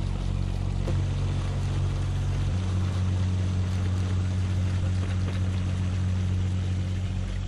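Motorboat running underway: a steady low engine drone over the rush of water and wind. The engine tone shifts slightly about a second in and again a little later.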